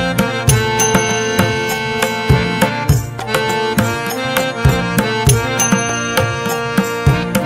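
Background music: a melody of sustained instrument tones over a regular hand-drum beat.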